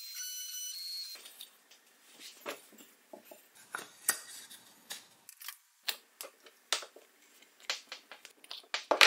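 A steady high whine stops about a second in. Scattered light clicks and wooden knocks follow as a small pine holster block and metal touch plates on clip leads are handled on the router bed.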